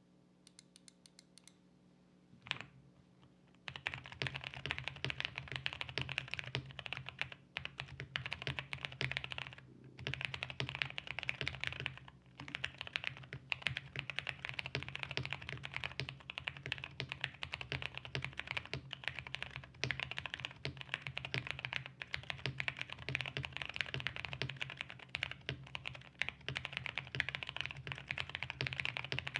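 Mechanical keyboard with stock, unlubricated Durock Koala tactile switches on 62 g springs, typed on quickly. A few scattered clicks come first, then a dense run of keystrokes starts a few seconds in, with a couple of short pauses.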